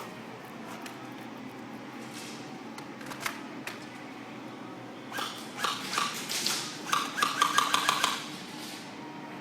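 Airsoft guns firing in a small room: a couple of single pops about three seconds in, then rapid bursts of shots from about five seconds until near the end.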